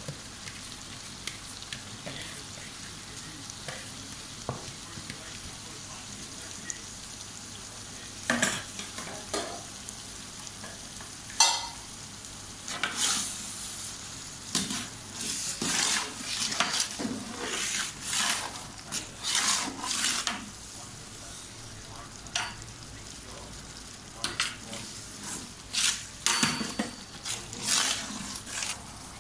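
Metal ladle stirring and scraping through a large aluminium pot of simmering masala liquid for biryani. Irregular runs of strokes start about eight seconds in, over a steady sizzling hiss from the cooking pot.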